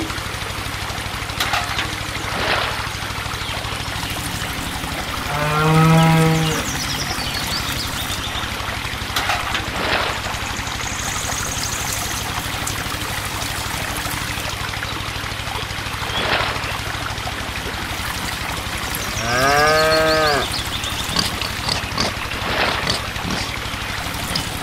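Cow mooing twice, one long call about five seconds in and another near the end, over a steady low hum and the sound of trickling, splashing water.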